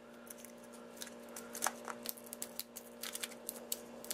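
Fingernails picking at and peeling a thin clear plastic seal off the seam of a small plastic capsule figure: a run of faint small clicks and crinkles, coming thicker near the end.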